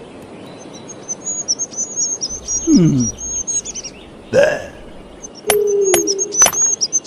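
Cartoon birdsong chirping, with a short falling low sound near the middle. From about five and a half seconds in come sharp taps of a stone hammer striking a chisel on rock.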